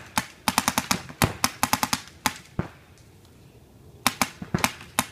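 Paintball markers firing in rapid strings of sharp shots, about ten a second, with a lull of about a second near the middle.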